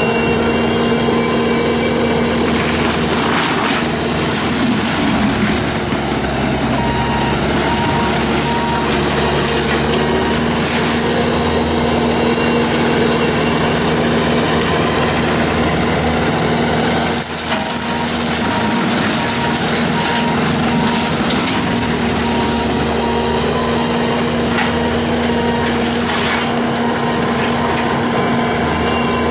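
Bobcat T770 tracked skid steer running hard and driving its forestry mulcher head, a steady loud machine hum under a dense grinding wash, with a few brief louder surges as the head works into material.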